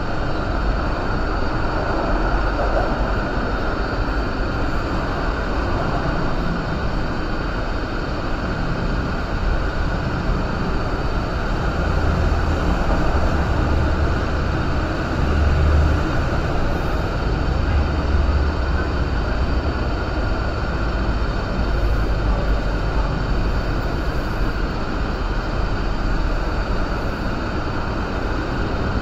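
MTR Kwun Tong line Q-train departing and rolling past on the adjacent track: a steady rumble of wheels and traction motors that swells in the middle as the cars go by.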